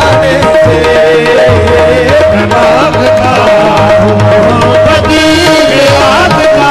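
Qawwali music: a harmonium holds a steady drone note under a wavering melody, over steady tabla drumming.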